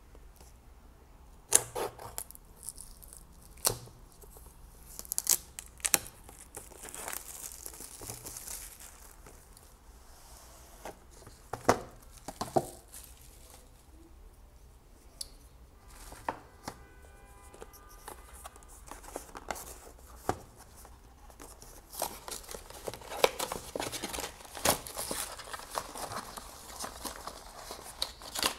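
Clear plastic shrink-wrap on a cardboard product box being slit with a small blade and torn away, crinkling, then the box and its cardboard insert opened, with sharp taps and rustles of card on the desk and a brief squeak about two-thirds of the way through.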